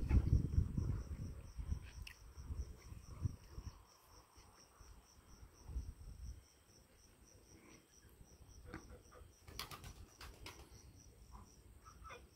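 A cricket chirping steadily, about three short high chirps a second. A low rumble, the loudest sound, fills the first few seconds, and a few sharp clicks come about ten seconds in.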